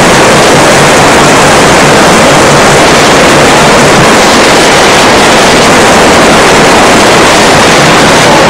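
Loud, steady rushing roar of a wadi in flood, water pouring past without a break.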